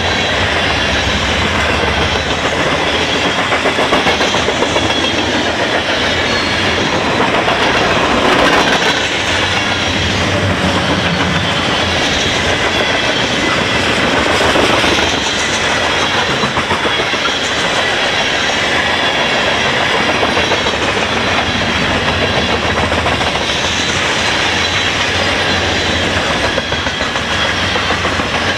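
Steel wheels of a long freight train's hopper, tank and box cars rolling past at speed: a loud, steady rumble and rattle with a fast clickety-clack over the rail joints.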